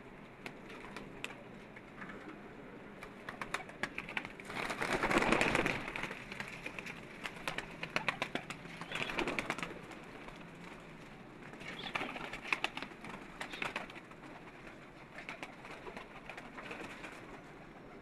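Pigeons cooing, with several louder bursts of wing flapping: the biggest about five seconds in, others around nine seconds and between twelve and fourteen seconds.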